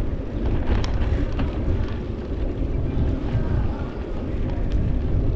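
Wind buffeting the microphone of a moving cyclist: a steady low rumble, with a few faint clicks.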